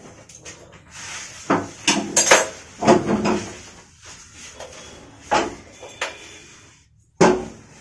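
A run of knocks and clunks from things being shifted and set down on a kitchen counter while it is wiped clean. Several come close together about two to three seconds in, with single ones later.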